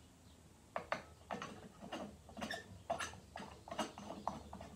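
Incandescent light bulbs being screwed by hand into a traffic light's sockets: a string of irregular light clicks and ticks as the bulbs turn in their sockets and knock against the metal reflectors.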